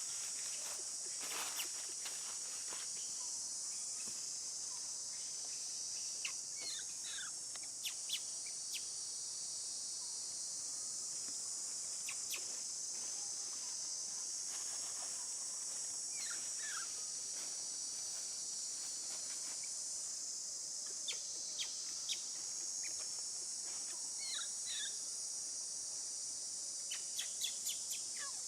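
A steady, high-pitched chorus of insects runs throughout, with occasional short chirping calls that rise or fall in pitch, a few of them in little clusters.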